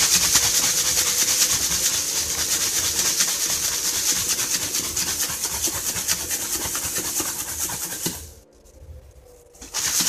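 A plastic bottle of eggshells in brown sugar, yogurt drink and coconut water being shaken hard by hand: a fast, continuous rattle and slosh. It breaks off about eight seconds in and resumes briefly near the end. The shaking dissolves the sugar that has settled and mixes the calcium fertiliser brew.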